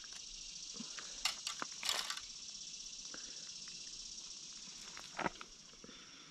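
A steady high-pitched insect chorus, with a few brief crackling rustles of handling close to the microphone about one and two seconds in and a sharp click about five seconds in.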